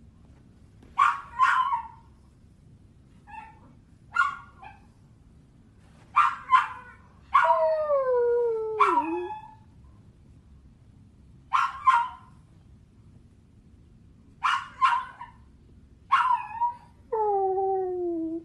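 Dog crying: short high yelps, mostly in quick pairs, broken by two longer whining cries that slide down in pitch, one about seven seconds in and one near the end.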